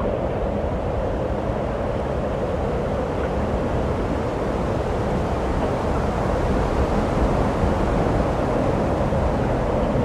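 Steady rushing noise of surf and wind, unbroken and with no distinct events.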